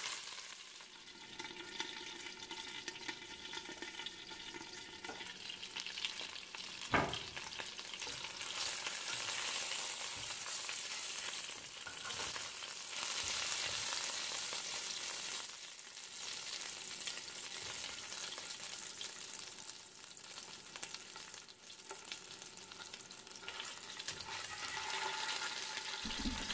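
Chicken drumsticks sizzling in hot oil as they brown in a ceramic-coated pan. There is one sharp knock about seven seconds in.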